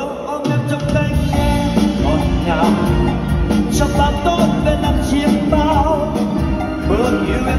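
A man singing an upbeat pop song live into a microphone, backed by a band with drums keeping a steady, lively beat.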